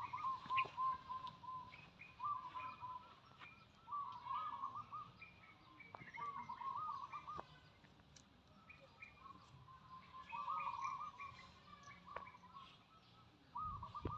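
Birds singing: short warbling phrases repeated about every two seconds, with higher chirps between them.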